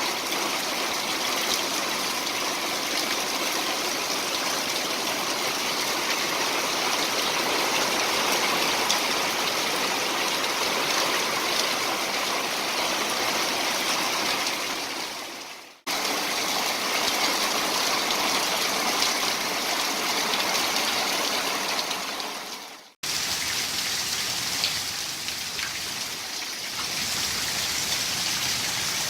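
Heavy rain pouring down in a steady hiss. It fades away and comes back abruptly twice, about 16 and 23 seconds in.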